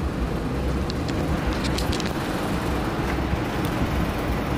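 Wind buffeting the microphone on an open, high observation deck: a steady low rumble that gusts up and down, with a few faint ticks about one to two seconds in.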